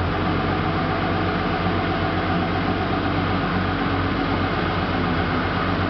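Cat forklift engine running steadily, close by, with a low hum under it.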